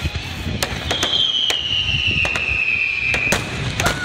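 Aerial fireworks going off in a string of sharp bangs and crackles. From about a second in, one long whistle slowly falls in pitch, and several more falling whistles start near the end.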